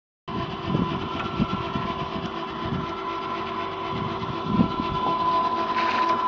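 Electric mini crane's winch motor running with a steady whine, with a few dull knocks in the first half.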